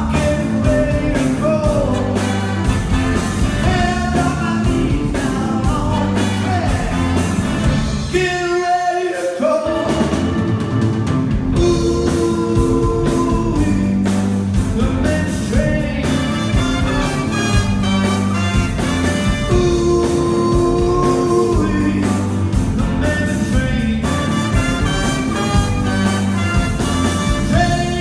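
Live band playing an up-tempo rock and roll / R&B number: lead vocal over electric guitar, bass, drums and a horn section with baritone saxophone. The bass and drums stop briefly about eight seconds in.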